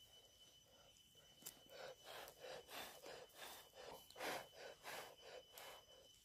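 Faint, quick scraping and scooping strokes, about three a second, of a split-bamboo spatula working inside a fire-roasted, charred pumpkin cooked full of pork and rice, starting about a second and a half in.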